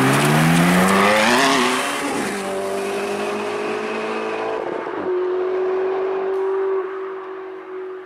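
High-performance car engine accelerating, its pitch climbing over the first second or two, then settling into a steady held note that fades near the end.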